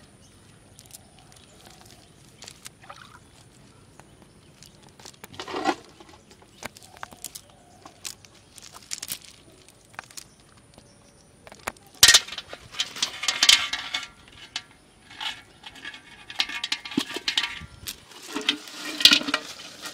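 Hands working fish out of a wet fishing net on loose gravel: scattered small clicks and clinks of stones and rustling of the net, sparse at first and busier and louder in the second half, with a few sharper knocks.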